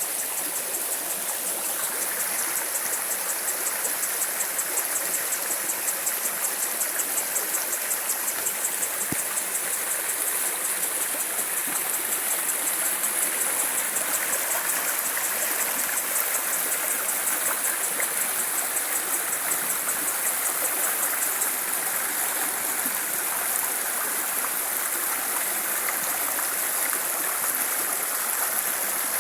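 Running water, a steady rushing flow like a stream. Above it sits a continuous high, rapidly pulsing hiss.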